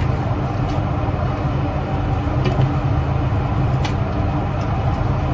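Steady low drone of an airliner's cabin in flight, with a few faint clicks.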